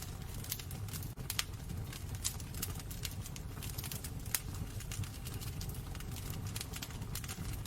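Wood burning in a fireplace, crackling with irregular sharp pops and snaps over a low steady rumble of the fire.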